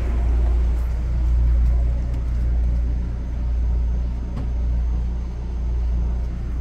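Low, steady rumble that swells and eases about once a second.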